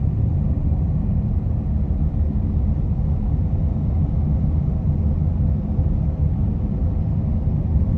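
Steady low rumble of a minivan driving on the road, heard from inside the cabin: tyre and engine noise.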